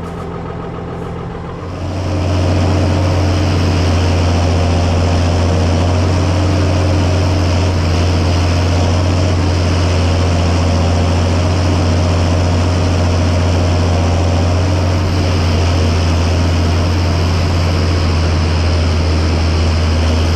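John Deere 6630 tractor engine running steadily with a deep hum, growing clearly louder about two seconds in and then holding steady.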